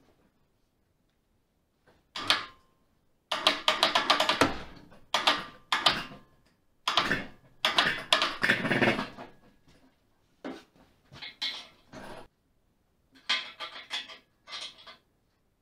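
Metal clanking and rattling in irregular bursts, with quick runs of knocks and clicks, as an air-cooled VW engine is manoeuvred onto a homemade steel engine stand and the greased spindle of its yoke is worked into the stand's pivot tube.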